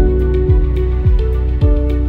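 Background music: soft held chords over a steady beat, with a deep kick drum about twice a second.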